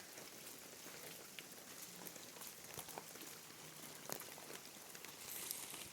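Faint rain and dripping water: a soft, even hiss with scattered single drops ticking.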